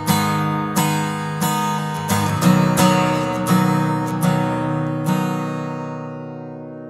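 Acoustic guitar strumming the closing chords of a song. The last chord, about five seconds in, is left to ring and fades out.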